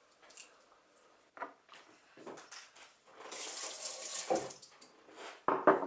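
Kitchen counter handling while garlic and red cabbage are prepared for fermenting: a few soft clicks, a brief crackly rustle about three seconds in, then a dull knock and a loud sharp knock near the end.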